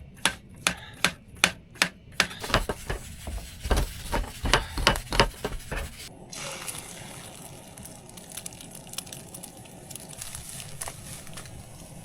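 Kitchen knife slicing zucchini thin on a cutting board: quick, regular chopping strokes, about three a second, that stop about six seconds in. A steady low hiss with a few faint crackles follows.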